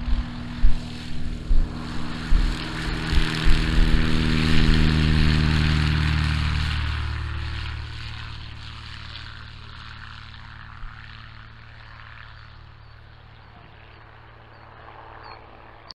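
Single-engine light propeller airplane at full power on its takeoff run. The propeller and engine drone grows louder for about five seconds, then fades into the distance. Wind buffets the microphone in the first few seconds.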